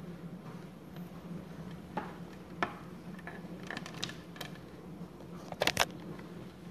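Scattered light clicks and clatter of small objects being handled on a desk, with a louder quick cluster of clicks near the end, over a steady low hum.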